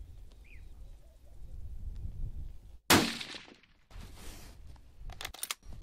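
A single rifle shot from a scoped Blaser .308 hunting rifle about three seconds in, ringing out briefly over the range, fired to zero the rifle. A few sharp metallic clicks follow near the end.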